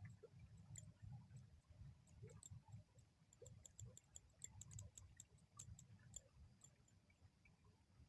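Near silence: a faint low rumble with scattered faint, irregular high-pitched ticks, thickest about halfway through.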